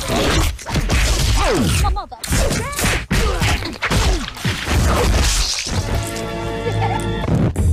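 Fast run of foley hits made with fresh vegetables: wet thwacks, smashes and squelches as a watermelon is worked and a tomato is crushed in a fist, with whooshes between. About six seconds in, music with held chords comes in.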